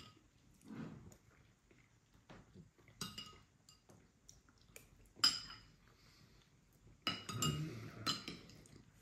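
Metal spoon clinking and scraping against a bowl while eating. There are a few light ringing clinks, one sharper clink a little after five seconds, and a quick cluster of clinks near the end.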